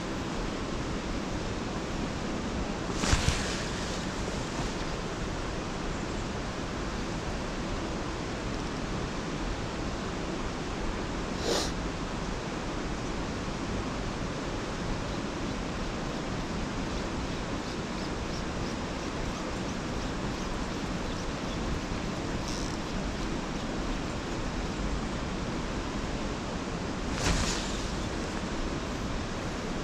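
Steady rushing of river water flowing through a rocky pool, with a few brief whooshes, the loudest about three seconds in and near the end.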